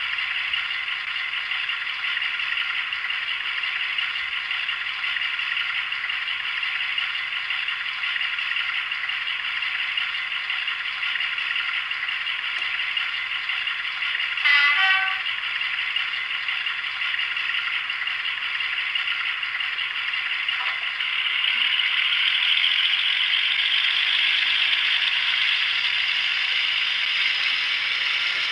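Model diesel locomotive's DCC sound decoder playing a diesel engine running, rattly and tinny through the loco's small onboard speaker. A short pitched blast comes about halfway through, and the engine sound grows louder about three-quarters of the way in as the train pulls away.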